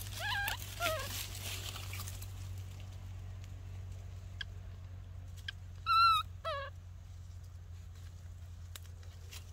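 Infant macaque giving short, high-pitched wavering calls: two falling calls right at the start, and a louder warbling cluster about six seconds in.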